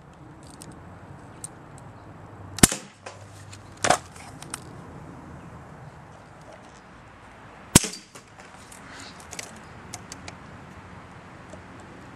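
BB gun shots: two sharp cracks about five seconds apart, the first followed about a second later by a second, slightly longer noisy burst, with a few faint clicks in between.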